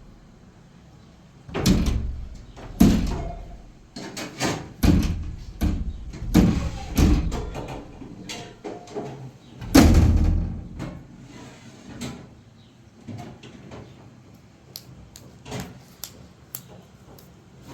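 An irregular series of heavy knocks and bangs, about eight in the first ten seconds, the loudest about ten seconds in, followed by lighter clicks and taps.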